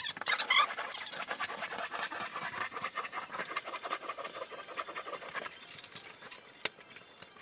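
Rubber grout float scraping over thin-set on a waffle-pattern uncoupling membrane in quick back-and-forth strokes, with a few short squeaks near the start, packing the waffles full. The scraping dies down about five seconds in, leaving a few scattered clicks.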